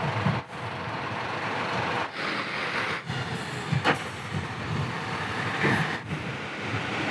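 Diesel coach bus running as it pulls away from the stop and drives off, a steady engine rumble with tyre and road noise, broken a few times by abrupt cuts.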